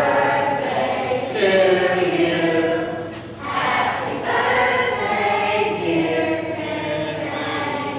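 A group of voices singing a hymn together in long held phrases, with a short break for breath about three seconds in.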